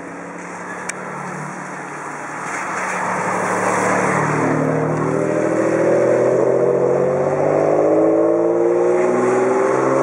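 A car passes with tyres hissing on the wet road. Then the Ferrari Enzo's V12 engine pulls away under acceleration, its note rising steadily in pitch and growing louder through the second half.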